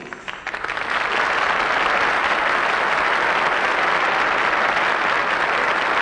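Audience applauding: a few scattered claps that swell within about a second into steady, dense applause.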